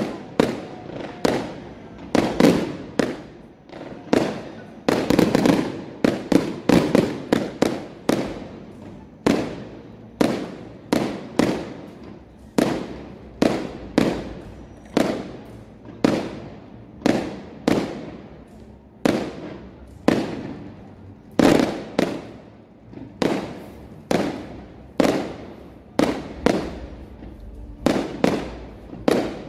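Aerial firework shells bursting in a steady barrage, about one to two sharp bangs a second, each trailing off in an echo.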